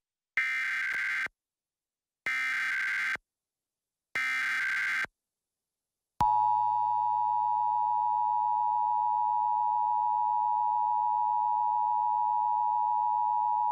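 Emergency Alert System SAME header: three short bursts of warbling digital data tones, each about a second long with a second's gap between, followed about six seconds in by the EAS attention signal, a steady two-tone beep that begins a required monthly test.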